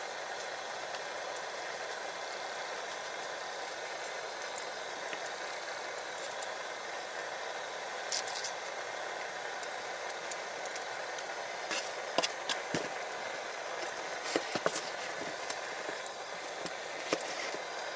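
Wood fire burning: a steady hiss with scattered sharp crackles and pops, most of them bunched about two-thirds of the way through.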